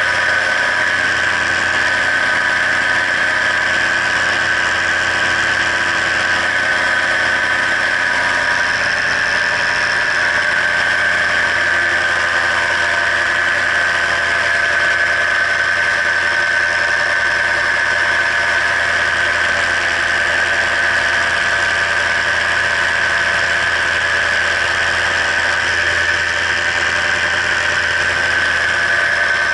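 Paramotor engine and propeller running steadily at cruise power, heard close up in flight.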